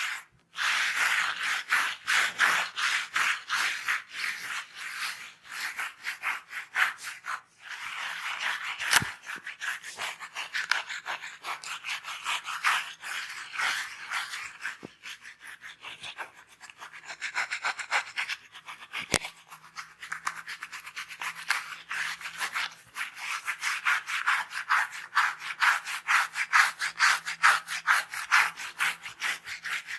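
Hands or a comb rubbing and scratching vigorously through hair and scalp in a head massage, in quick, even strokes. Two sharp clicks stand out, about nine and nineteen seconds in.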